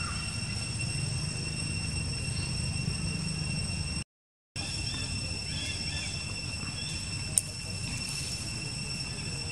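Forest ambience: a steady high insect drone at several pitches over a low rumble, with a few faint short chirps and one sharp click about three-quarters through. The sound cuts out completely for half a second a little before halfway.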